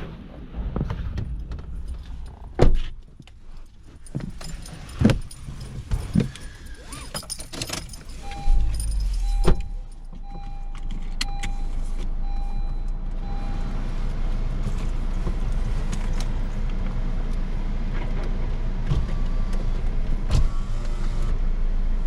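A car being got into and started: several knocks and clunks with keys jangling, then the engine starts about eight and a half seconds in. A warning chime beeps about once a second for a few seconds, and the engine then runs with a steady low drone.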